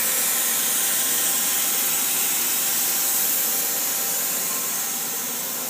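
Steady, even hiss with faint steady hum tones beneath it, easing a little in level near the end.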